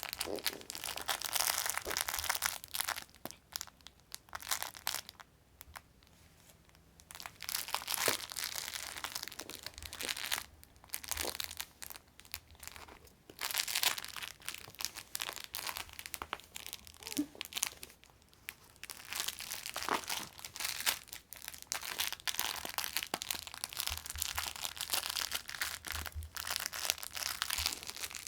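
Crinkle cat toy rustling and crackling in irregular bursts as a cat kicks and wrestles with it, with a quieter lull about four seconds in.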